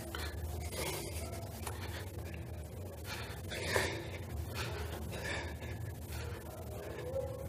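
A man breathing hard while doing push-ups, letting out short puffs of breath about once a second. The strongest puff comes about four seconds in.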